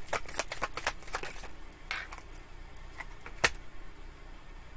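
A tarot deck shuffled by hand, the cards slapping together in quick light clicks that thin out after about a second and a half, then a sharp single snap about three and a half seconds in.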